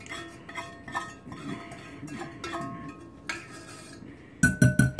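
A utensil scraping and knocking inside a stainless steel saucepan as the last of the hardening sugar syrup is scraped out, the metal pan ringing after the knocks. A quick run of louder knocks comes near the end.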